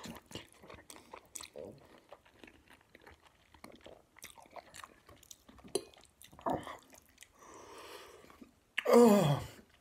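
A man chewing and slurping a mouthful of instant ramen noodles, with many small wet mouth clicks. Near the end comes a loud vocal sound that falls in pitch.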